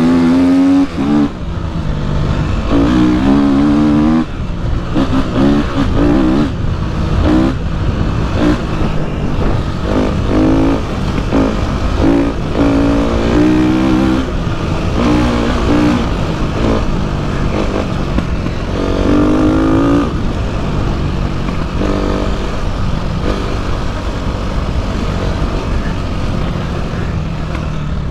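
Dirt bike engine under the rider's throttle, its pitch sweeping up and dropping back again and again as it accelerates along the track, settling to a steadier run for the last several seconds.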